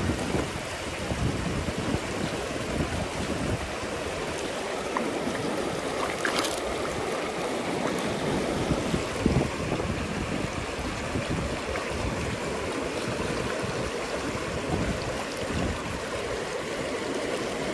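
River current rushing steadily, with one short click about six seconds in.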